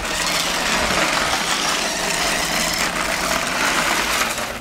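Remote-control toy Ferrari Enzo's electric drive motor and gears whirring as the car drives across asphalt. It is a steady, loud whir that cuts off near the end.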